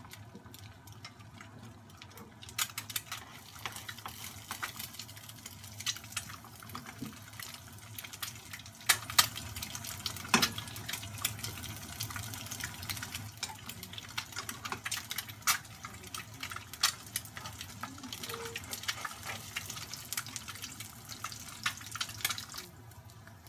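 An egg frying in hot sesame oil: a steady sizzle with frequent sharp crackles and pops of spattering oil. The crackling picks up about two and a half seconds in, is loudest in the middle, and dies down just before the end.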